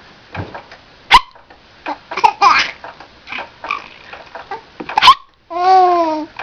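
A baby hiccuping, with two sharp hiccups about a second in and about five seconds in, laughing and babbling between them. A long, high vocal sound follows near the end.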